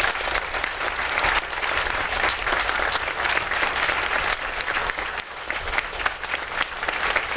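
Large seated audience applauding steadily.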